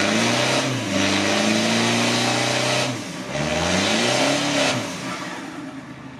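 Toyota Innova's 2.5-litre 2KD-FTV turbodiesel, fitted with an aftermarket turbo, free-revved twice. The revs climb and hold high, dip briefly about three seconds in, climb again, then fall away and fade near the end.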